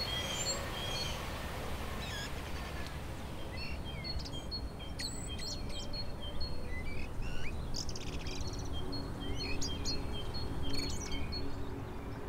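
Several wild birds chirping and calling over a steady low outdoor rumble. The calls are busiest in the middle and second half.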